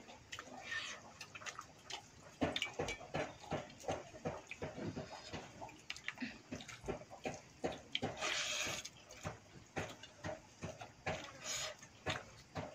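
Close-up eating sounds: a hand squeezing and stirring water-soaked pakhala rice in a steel bowl, with wet splashes, among chewing and lip smacks in a quick run of short clicks.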